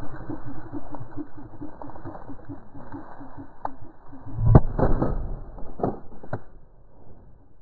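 Hurried footsteps in a quick, even rhythm over snowy ground, then shotgun shots at a flushing covey of chukar partridges. The loudest blast comes about four and a half seconds in, and several lighter, sharp cracks fall around it.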